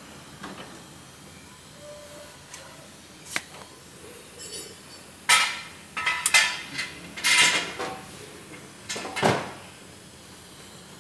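Metal parts of a disc-brake caliper being handled and fitted together by hand: a single click, then a run of sharp clanks, clicks and scrapes bunched in the middle, ending in one heavier thud.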